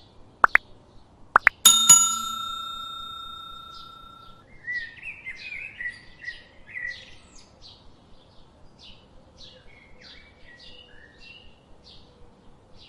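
Two quick rising swoosh effects, then a bell-like chime that rings out and fades over a couple of seconds. Small birds keep chirping in short repeated notes underneath, most of all in the second half.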